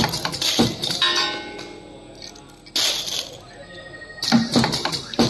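Pneumatic glue-filling machine cycling: sharp metallic knocks and clinks that ring on briefly, with two short hisses of air about a second in and just under three seconds in. A cluster of knocks comes near the end.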